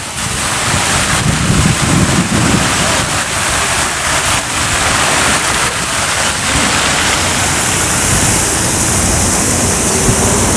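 Wind buffeting the microphone: a steady rushing hiss with irregular low rumbling gusts.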